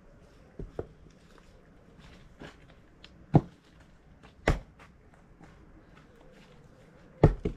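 Axe chopping rain-soaked wood: a few sharp knocks at uneven intervals. The loudest come about three and a half and four and a half seconds in, with a double knock near the end.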